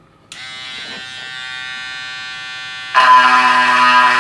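Mini linear electric sander pen switched on, buzzing steadily as its tip vibrates side to side. About three seconds in the buzz becomes much louder.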